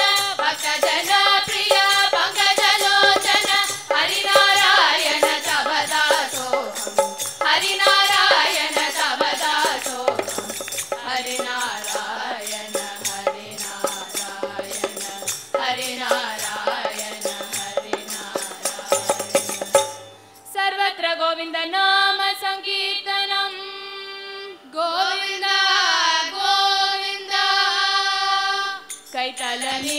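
A girls' group sings a devotional bhajan together, with hand percussion keeping a quick beat. About two-thirds of the way in, the percussion drops out and the voices sing on alone. The beat returns right at the end.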